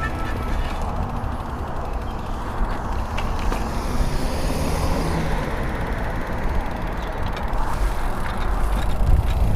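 Steady rush of wind on the microphone and tyre noise of a road bike rolling along, with a heavy low rumble.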